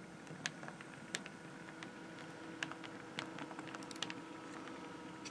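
OO gauge Accurascale Class 37 model locomotive running over set-track points: a faint steady motor hum with a handful of light, scattered clicks from the wheels over the rail joints and frog. Its wheel back-to-backs have been adjusted, and there is no loud clonk at the frog.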